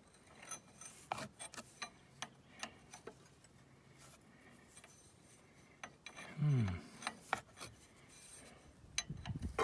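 Hydraulic hose fittings being handled and threaded on by hand: scattered metallic clicks and scraping. About six and a half seconds in comes a brief, louder falling tone.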